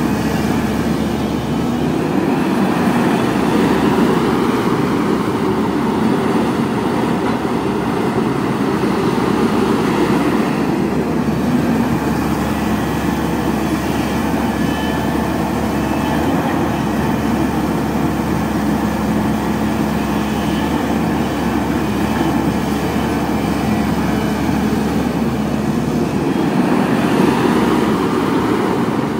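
Cat 320D hydraulic excavator's six-cylinder diesel engine running under load with its hydraulics as the arm and bucket dig and swing. It makes a steady heavy drone that grows louder near the start and again near the end.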